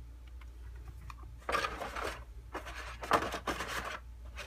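Handling noise as a small projector in a soft black padded case is moved and set back into a cardboard box: several bursts of rustling and scraping from about a second and a half in.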